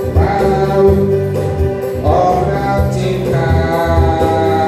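A man singing into a microphone through a PA speaker, over electronic keyboard accompaniment with a steady beat.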